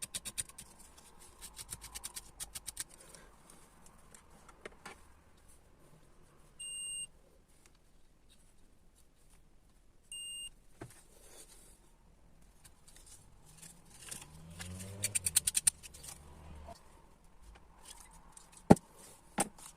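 Two short electronic beeps, about three and a half seconds apart, from a multimeter's continuity tester, the beep that signals a closed circuit between the probed terminals. Around them are light metallic rattling and clicking from handling the iron's metal parts, and one sharp click near the end.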